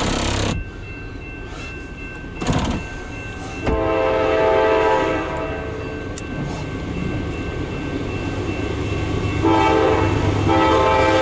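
Diesel locomotive air horn of an approaching CSX freight train sounding for a grade crossing: a chord of steady tones starting about four seconds in and growing louder in steps toward the end as the train nears. Two short bursts of noise come before it, at the start and about two and a half seconds in.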